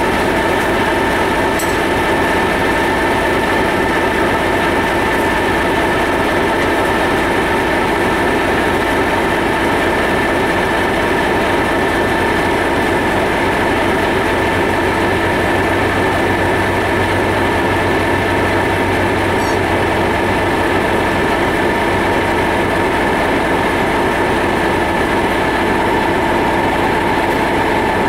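Class 67 diesel locomotive's two-stroke V12 EMD engine running steadily, with a constant high whine over the engine noise.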